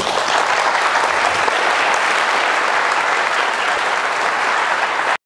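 Audience applauding steadily, a dense clapping that cuts off abruptly near the end.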